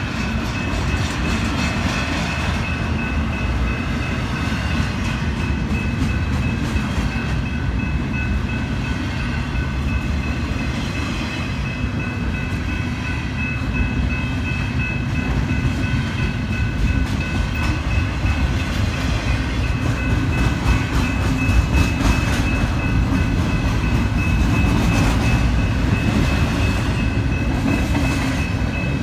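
Train rolling past: a steady low rumble of wheels on rails, with a thin high steady whine over it.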